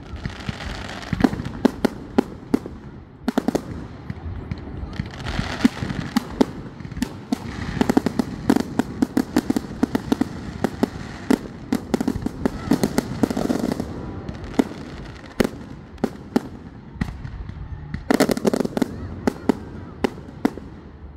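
Aerial fireworks going off in a display: repeated sharp bangs of bursting shells with crackling pops, thickening to a dense run of bangs and crackle in the middle of the stretch.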